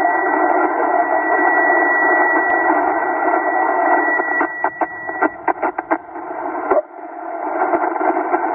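Shortwave receiver hiss from a Yaesu HF transceiver tuned to the 20 m band in upper sideband, with a thin steady whistle of a carrier that fades out about halfway. A quick flurry of short crackles follows.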